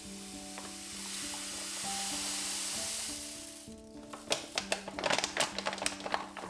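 Food frying in hot oil in a pan: a steady sizzle that fades just before the middle, then a quick run of sharp crackles and spatters.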